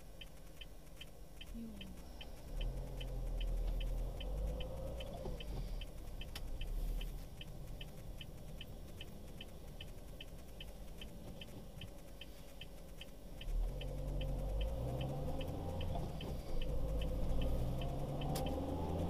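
A car's turn-signal indicator ticking steadily, about two and a half ticks a second, over the low rumble of the engine and tyres. The engine swells twice and near the end rises in pitch as the car accelerates.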